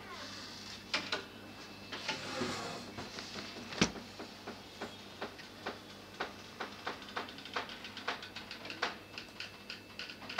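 A series of sharp clicks or taps, scattered at first with one louder knock about four seconds in, then coming fairly evenly about three a second and quickening near the end.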